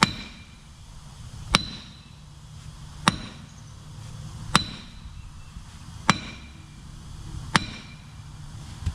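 Hammer striking metal: seven sharp, ringing blows about a second and a half apart, working to break loose the stuck wedge that clamps the tractor's rear wheel to its axle.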